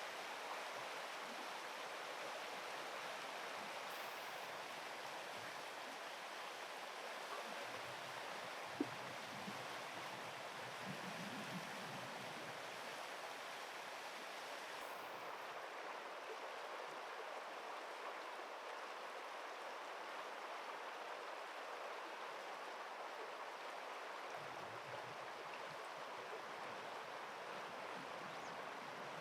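Steady rushing of flowing river water, an even hiss with no change through the stretch. A single short click sounds about nine seconds in.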